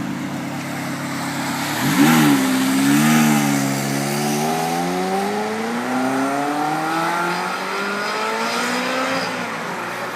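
Ferrari 360 Challenge Stradale's V8 running, revved sharply about two seconds in, then accelerating with its pitch climbing steadily for several seconds before an upshift near the end.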